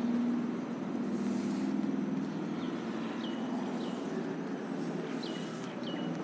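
Chalk scraping on a blackboard in long strokes as straight lines are drawn, over a steady low hum. A few short high-pitched squeaks are heard in the second half.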